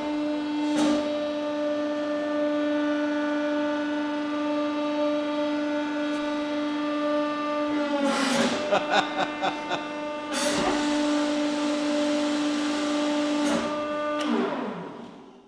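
Hydraulic press pump whining steadily as the ram drives down onto soft plasticine. About eight seconds in, with the ram pressed into the clay, the whine wavers and crackles for a couple of seconds. It then runs steadily again as the ram lifts, and falls in pitch and fades near the end.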